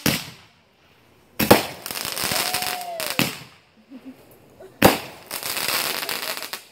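Consumer aerial fireworks firing: four sharp bangs about one and a half seconds apart. The second and last are each followed by a second or more of hissing and crackling as the bursts' glittering tails burn out.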